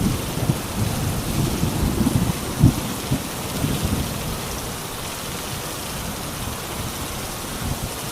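Steady rain falling, with a roll of thunder rumbling low through the first half. It peaks about two and a half seconds in and fades away by about five seconds, leaving the rain alone.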